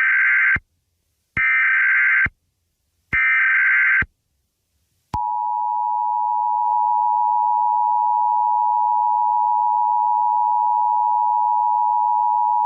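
Emergency Alert System alert opening: three short bursts of SAME digital header data, then, after a one-second gap, the steady two-tone EAS attention signal, which starts about five seconds in and holds.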